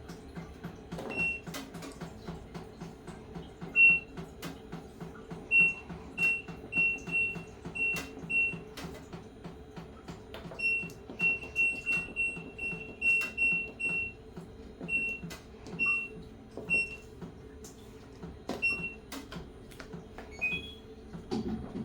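LG top-load washing machine's control panel giving many short, same-pitch electronic beeps at irregular spacing over a low steady hum, with faint clicks between them. Near the end comes a short rising two-note chime.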